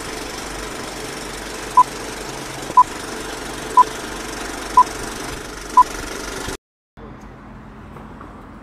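Countdown-leader beeps: five short, identical beeps at even one-second intervals over a steady mechanical running noise. The sound cuts off abruptly, then gives way to quieter street ambience.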